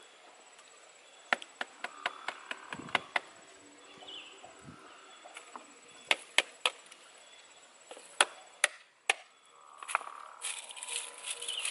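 Knife blade chopping into a green bamboo stick: a quick run of about seven sharp chops, then scattered single strikes, with rustling near the end.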